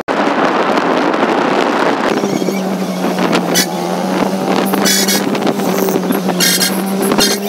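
Riding in a moving vehicle: wind rushing over the microphone and road noise, then from about two seconds in a steady engine hum. Three short, high-pitched rattling trills sound over it.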